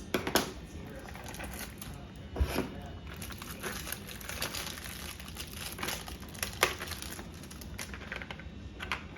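Packaging crinkling and rustling as it is handled, with a few sharp clicks and knocks, the loudest right near the start.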